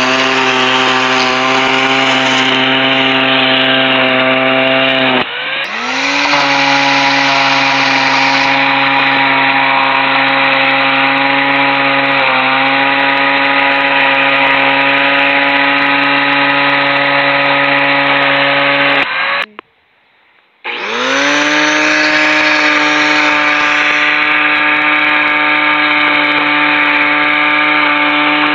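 Black & Decker electric string trimmer spinning zip ties cut short in place of trimmer line, running at full speed against weeds with a steady whine. It dips briefly about five seconds in and spins back up, then cuts out for about a second and a half two-thirds of the way through and winds up again.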